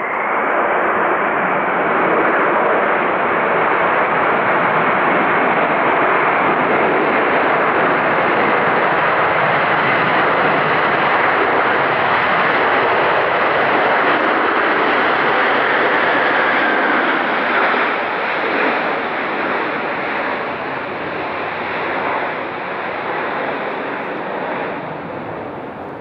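Jet airliner's engines passing close by on landing: loud, steady engine noise with a high whine that slowly drops in pitch, then fading unevenly after about 17 seconds.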